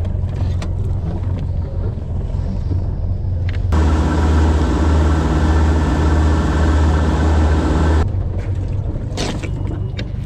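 A boat's engine hums steadily at low speed. About four seconds in, the sound jumps to the boat under way: the engine running harder with a rush of wake water against the hull, louder and fuller. This cuts off abruptly near the eight-second mark and the low engine hum returns.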